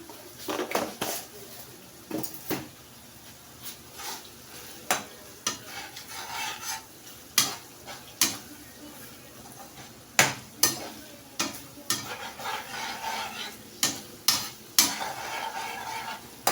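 A spoon stirring a pot of pepper sauce frying in oil, with irregular sharp clinks of the spoon against the pot and a low sizzle between them.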